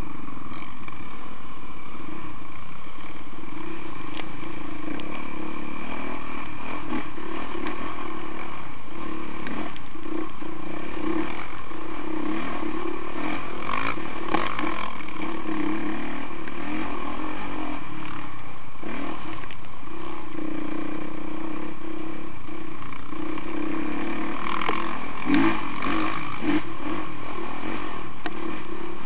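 Honda CRF450R single-cylinder four-stroke dirt bike engine running steadily while riding a rocky trail, with occasional clattering knocks from the bike over the stones.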